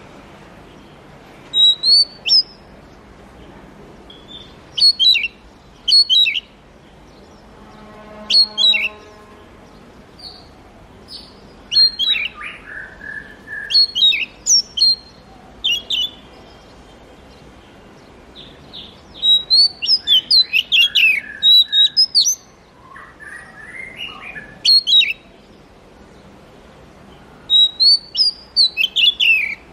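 Oriental magpie-robin singing: short phrases of clear, sharp whistled notes that slide up and down, with pauses between them. A brief buzzy note comes about a third of the way in, and a longer, rapid run of notes comes about two-thirds through.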